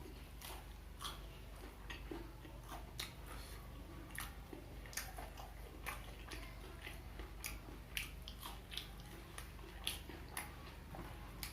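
Close-up chewing and biting of crunchy fried Indonesian snacks (gorengan): a steady run of short crisp crunches, about two a second.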